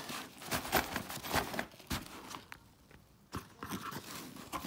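Packaging and a tool bag being handled during unboxing: scattered clicks, taps and crinkling, with a brief quieter pause a little past halfway.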